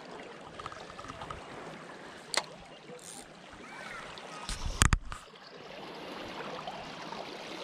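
Small waves lapping and trickling against shoreline rocks, steady throughout. A sharp click about two and a half seconds in, and a louder sharp knock just before five seconds in as a spinning rod is cast and its reel worked.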